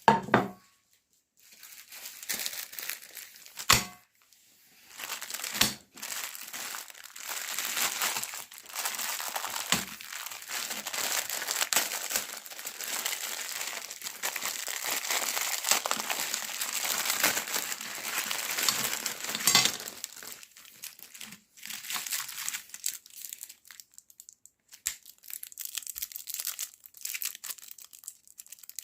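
Chocolate wrappers crinkling and tearing as the sweets are unwrapped, with a few sharp knocks in the first ten seconds. The crinkling runs almost without a break through the first two-thirds, then thins to scattered crackles.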